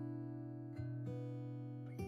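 Background music of plucked acoustic guitar, with sustained notes and a couple of new notes struck near the middle.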